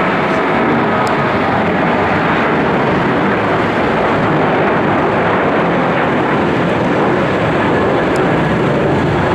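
Boeing 737-800's CFM56-7B turbofan engines at take-off thrust as the airliner climbs out, a loud, steady jet roar.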